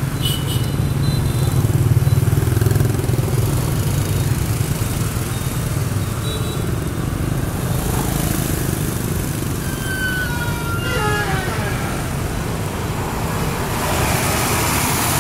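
Street traffic with passing motorbikes, a steady low rumble of engines and road noise heard from a moving pedal cyclo, loudest a second or two in. A few brief falling tones come about ten seconds in.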